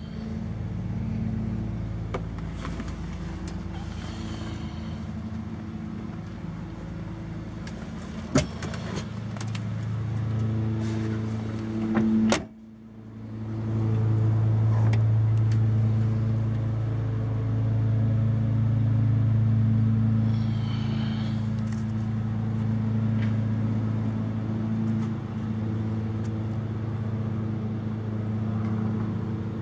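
Ford LTD's engine idling with a steady low hum, with a sharp knock about eight seconds in and a louder clunk around twelve seconds in.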